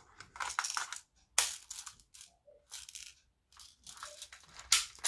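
Clear plastic airsoft guns being handled: a magazine pushed into the pistol's grip and the plastic parts clicking and rattling, with two sharp snaps, one about a second and a half in and one near the end.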